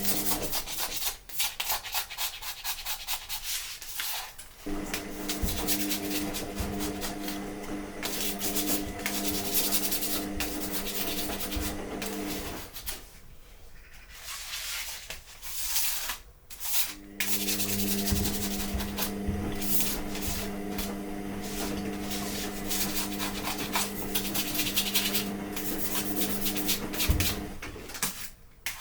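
Rapid back-and-forth scrubbing on a 3D printer's spring steel bed sheet, rubbing off leftover PEI adhesive, with two short pauses. A steady low hum runs under much of it.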